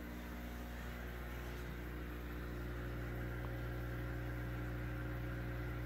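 Steady electrical hum with a soft hiss from running aquarium equipment such as filter pumps, growing slightly louder toward the end.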